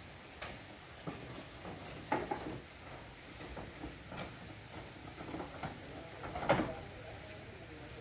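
Clay roof tiles knocking and clinking as they are shifted about on the roof overhead: scattered light knocks, the loudest about six and a half seconds in.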